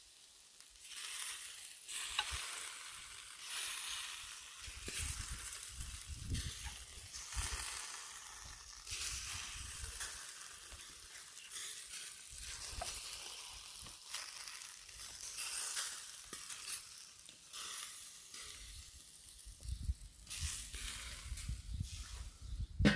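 Lamb chops sizzling on the wire grate of a charcoal kettle grill, a steady hiss that swells and fades.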